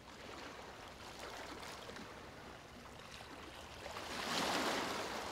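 Gentle sea waves washing on a beach, with one wave surging in louder about four seconds in and then drawing back.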